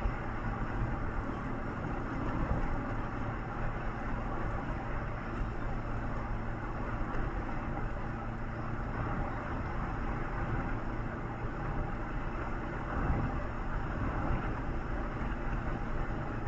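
Steady running noise of a road vehicle on the move: engine hum and tyre and road noise, with no distinct events.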